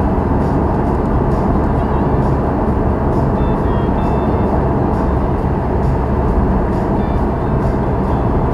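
Steady road and engine noise heard inside a moving car's cabin at around 35 to 45 mph.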